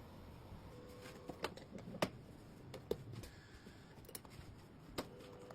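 Irregular light clicks and taps, about seven scattered over several seconds, over a faint steady background.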